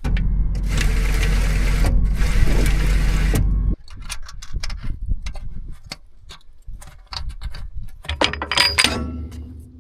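A machine's motor runs loudly for nearly four seconds and cuts off suddenly, followed by irregular mechanical clicks and knocks, with a busier clatter near the end.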